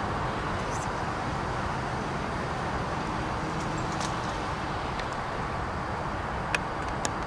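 VRE MotivePower MP36PH-3C diesel locomotive approaching with its commuter train, a steady low rumble. A few short sharp clicks come near the end.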